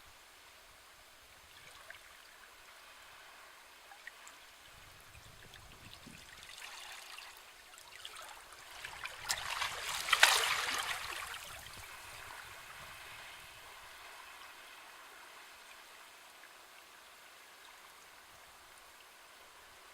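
Sea waves washing in on the shore: a quiet wash swells into one wave breaking with a hiss in the middle, the loudest moment, then recedes back to a low wash.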